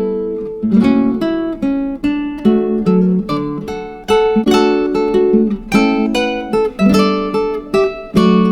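Background music: acoustic guitar playing plucked and strummed chords that change about once a second.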